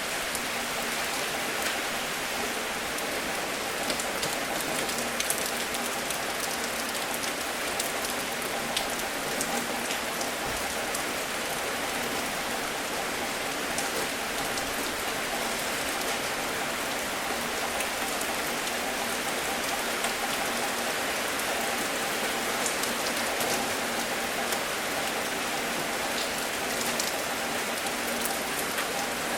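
Steady, even rain falling, with scattered individual drops ticking sharply above the hiss.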